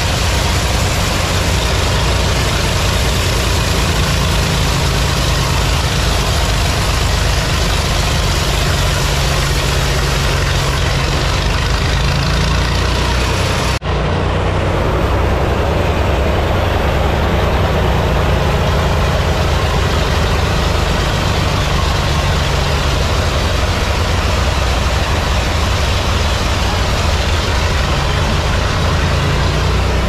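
Sawmill machinery running: a loud, steady engine drone with a strong low hum, briefly dipping about fourteen seconds in.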